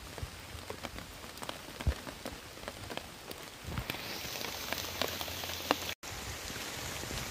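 Rain falling, with many separate drops ticking on surfaces close by. A steadier hiss builds about halfway through, and the sound cuts out for an instant near the end.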